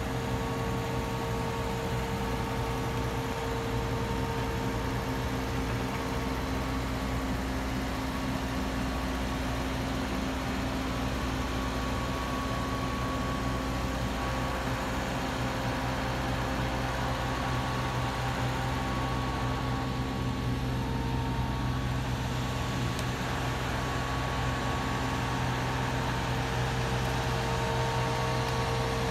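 Mobile crane's engine running steadily at a constant speed, a level drone with a few steady tones.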